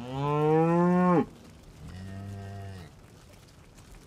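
Cattle mooing: one loud moo lasting just over a second, then a quieter moo a moment later.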